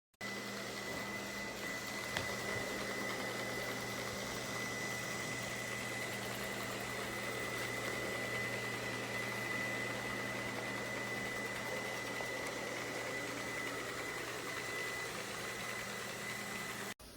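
Robot vacuum cleaner running: a steady motor hum with an even high whine. It starts suddenly and cuts off near the end.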